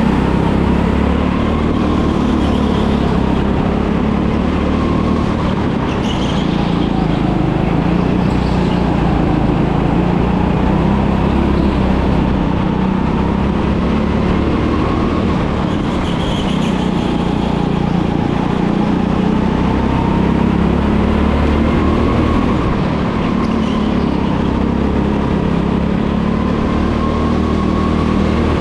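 Go-kart engine running, its pitch rising and falling in slow waves every few seconds as the revs climb and drop.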